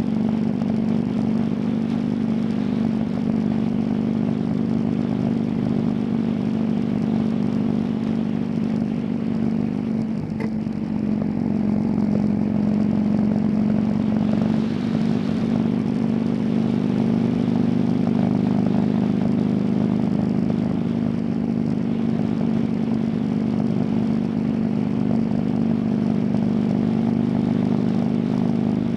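Motorcycle engine running at a steady cruising speed, with wind and road noise; it eases off briefly about ten seconds in, then picks up again.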